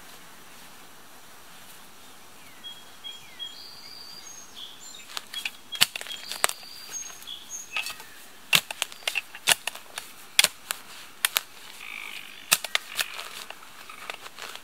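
A short-handled digging tool chopping and scraping into dry, hard soil while a fire pit is dug: sharp, irregular strikes that start about five seconds in and come several times a second at their busiest. Faint bird chirps come before the strikes begin.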